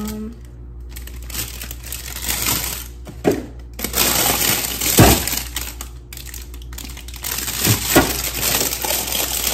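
Rummaging through food items: a handful of light knocks and clunks, the loudest about five seconds in, with rustling and crinkling of packaging between them.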